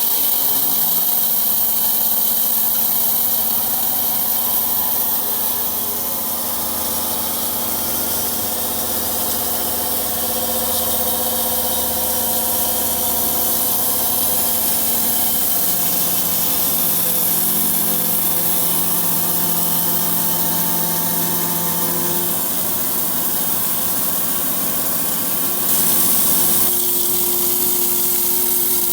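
Sawmill running, sawing through a turkey oak log: a steady machine and saw noise with a strong hiss, its pitch shifting a few times and briefly louder near the end.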